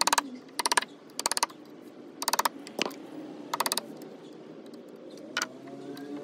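Steel chisel pushed and levered by hand into the wood around the metal wedge in a hatchet's eye, giving about seven short bursts of rapid clicking and scraping as wood and metal are picked at.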